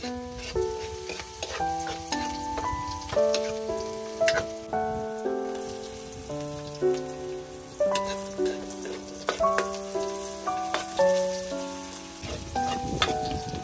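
Food sizzling in a frying pan, with a few sharp clicks, under a soft background melody of short plucked notes.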